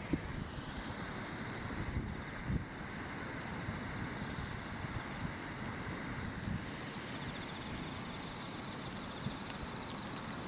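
Steady rush of a river swollen by typhoon rain, with wind buffeting the microphone in irregular low thumps.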